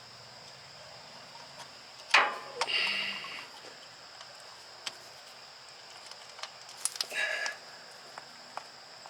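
Hand-work on hoses and fittings: a sharp knock about two seconds in, followed by short squeaky rubbing, another squeak a little after seven seconds, and scattered light clicks.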